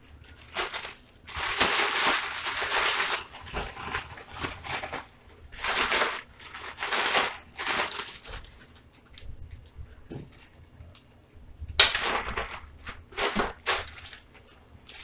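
Clear plastic bag rustling and crinkling in several bursts as chicken wings are dropped in and the bag is shaken to coat them in a dry seasoning mix. The longest burst comes about a second in, with shorter ones around the middle and near the end.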